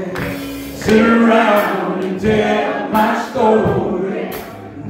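A man sings a gospel song into a microphone, in sung phrases with short breaks between them.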